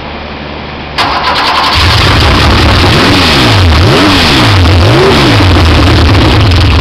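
Porsche 4.0 big-bore air-cooled flat-six on open intake stacks and a short open exhaust pipe, running on an engine stand as its fuel and ignition are tuned. It comes in loudly about a second in and settles to a steady idle. The throttle is then blipped three times, the pitch rising and falling with each.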